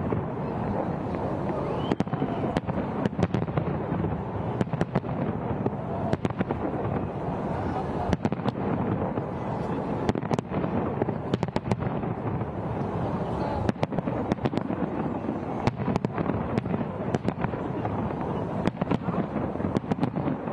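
Fireworks shells bursting in an irregular series of sharp bangs, several a second at times, over a steady background of crowd voices.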